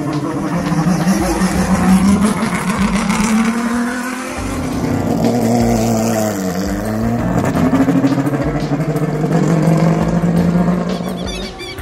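Turismo Carretera Next Gen race car engines revving hard as the cars pull away down the pit lane, the pitch climbing, dipping sharply just past the middle and climbing again.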